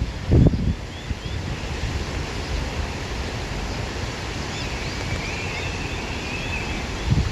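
Wind blowing through grass, a steady rushing, with gusts buffeting the microphone about half a second in and again near the end.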